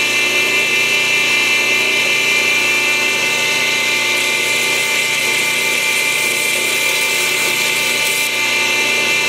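Belt grinder switched on and running at speed, a steady high whine from its motor and sanding belt.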